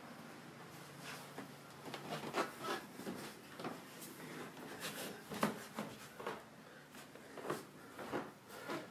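Quiet, irregular knocks and rubbing noises, a dozen or so short sounds spread unevenly over several seconds, over a faint steady hum.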